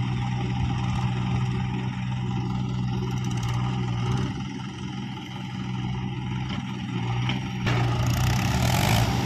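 Mahindra 575 DI tractor's four-cylinder diesel engine running steadily under load as it pulls a fully loaded trailer of soil. Near the end a louder, broader rush of noise rises over the engine.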